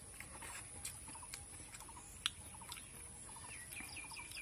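Birds chirping faintly in the background: short calls repeated over and over, with a run of higher chirps near the end. A few soft clicks are heard, with one sharper click about halfway through.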